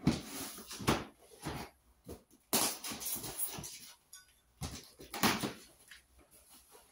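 A long cardboard box being handled and shifted: a run of knocks and thumps with cardboard scraping and rustling in between, the heaviest thumps near the start and about halfway through.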